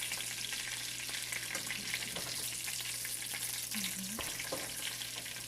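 Chicken pieces deep-frying in hot oil: a steady sizzle thick with fine crackling and popping, the chicken nearly cooked.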